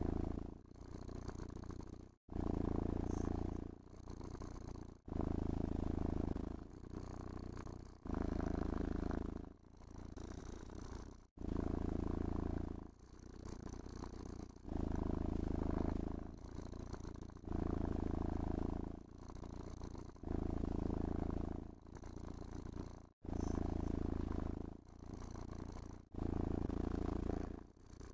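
Domestic cat purring steadily as it is brushed and stroked, the purr swelling louder and easing softer in turn with each breath, roughly every two and a half to three seconds.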